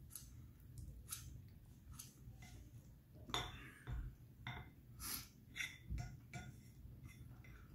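Chopsticks clicking and scraping against a stoneware bowl while picking up the last noodles: a dozen or so faint, irregular clicks.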